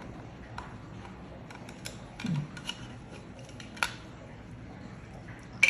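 Scattered small clicks and taps of a screwdriver and plastic parts as a soap dispenser's motor is taken apart, the sharpest click about four seconds in and another near the end.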